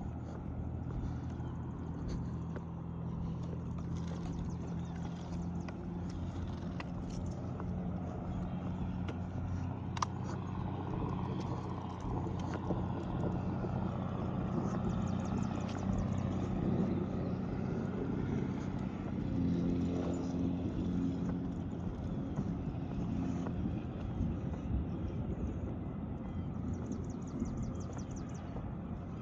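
A car engine running with a steady low hum that shifts in pitch about two-thirds of the way through, with a sharp click about ten seconds in.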